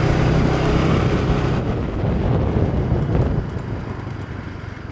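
Motorcycle engine running with wind noise on the microphone; the engine hum stops about a second and a half in, leaving a rushing noise that slowly fades.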